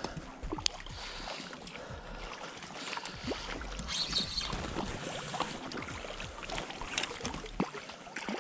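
Hooked small trout splashing at the water's surface in irregular bursts as it is reeled in toward the landing net.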